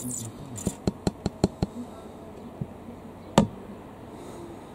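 A quick run of about six sharp clicks or knocks, then a fainter one and a single louder knock about three seconds in.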